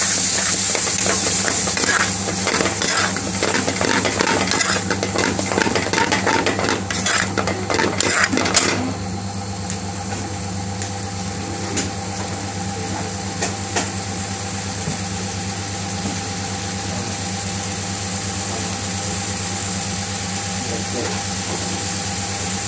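Metal spoon stirring saag paneer in a metal pan, scraping and clinking against the sides for the first eight or nine seconds. The spoon then stops, leaving the steady sizzle of the creamy spinach curry cooking over a steady hum.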